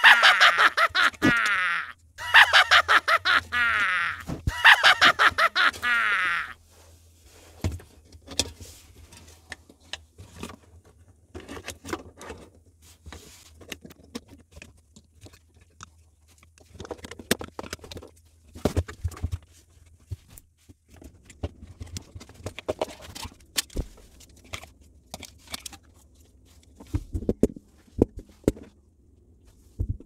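A comic sound effect edited in: three loud bursts of high, rapidly pulsing squawks in the first six seconds. After it come scattered light clicks and rustles of hands handling a refrigerator evaporator fan motor and its plastic mount, over a low steady hum that stops about two-thirds of the way through.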